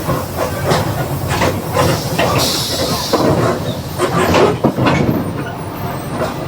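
Mercedes-Benz OF 1721 BlueTec 5 bus on the move: a steady low drone with the rear differential growling, under a clatter of rattles and knocks. A short hiss of air comes about two and a half seconds in.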